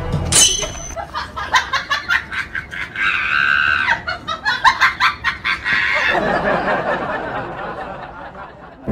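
Laughter: a fast run of short bursts lasting about five seconds, then trailing off. It opens with a brief, sharp rising sound.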